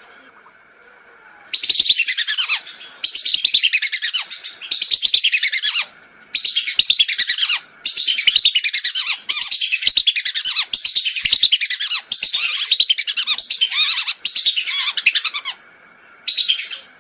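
Whistling duck (belibis) calls from a hunter's lure recording: loud phrases of rapid, shrill, falling whistles, each about a second long, repeated with short pauses. The calling starts about a second and a half in.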